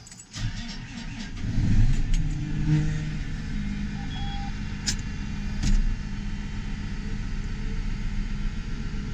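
Farm tractor's diesel engine cold-starting: it catches and revs up over the first couple of seconds, then settles into a steady idle to warm up. Two sharp clicks come a little past halfway.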